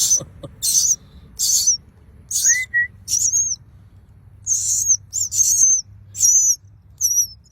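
Nestling birds begging to be fed, giving about ten short, shrill, high-pitched squealing calls in quick succession, with one lower whistled note about two and a half seconds in.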